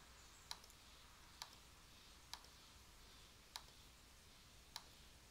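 Faint computer mouse clicks, five of them spaced about a second apart, over a quiet room hum.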